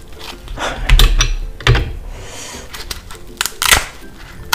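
Scissors snipping through the hard shell of a king crab leg: a series of sharp crunching cracks and clicks.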